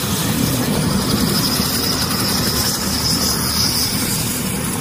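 Mi-17 military transport helicopters running on the ground with rotors turning: a steady turbine and rotor noise with a fast, low chopping beat. A high turbine whine rises above it from about half a second in and fades near the end.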